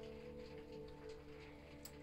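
Soft background music of held, sustained notes, with a faint click near the end.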